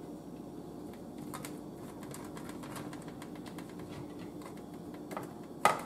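Faint scattered clicks and taps of sausage pieces being set by hand into a metal baking pan, over a steady low hum. A sharper knock comes near the end.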